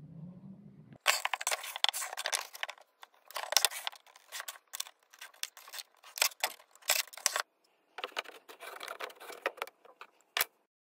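A metal ruler and a pencil handled on a wooden board: irregular bursts of scraping and scratching with light metallic clicks, ending in one sharp click near the end.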